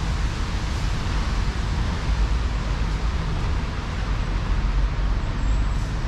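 Steady city-centre street ambience: a constant low traffic rumble under an even hiss, with no single event standing out.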